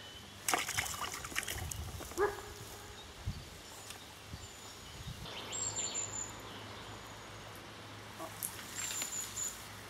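Rustling and a few light knocks from handling crayfish-net strings and branches, busiest in the first two seconds, with short high bird chirps a few times, the clearest near the middle and near the end.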